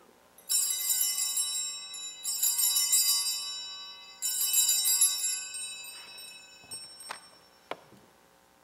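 Altar bells rung three times at the elevation of the consecrated host: three bright, jingling peals about two seconds apart, each ringing on and fading. Two soft knocks follow near the end.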